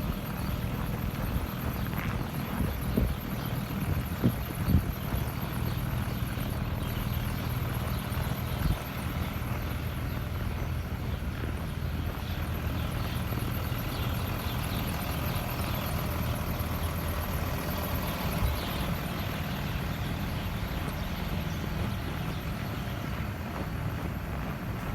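Steady low engine rumble, as from a vehicle running, with a few sharp knocks like footsteps in the first few seconds.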